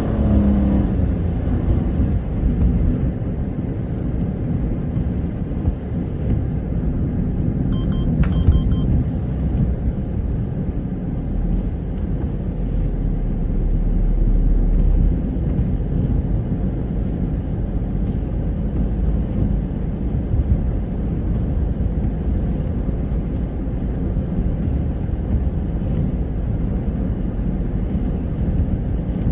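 Car driving on a rain-wet road, heard from inside the cabin: a steady rumble of engine and tyre noise. A brief faint high blip about eight seconds in.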